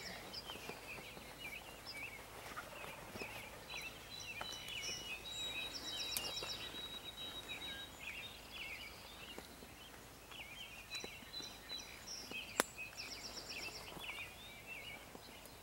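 Several wild birds calling and chirping over a faint outdoor background, with a thin high held note for a few seconds in the middle. A single sharp click comes about twelve and a half seconds in.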